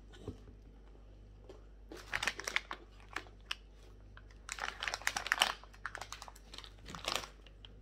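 Crinkling of an opened snack packet as it is handled, in a short burst about two seconds in and a longer stretch from about four and a half to seven seconds.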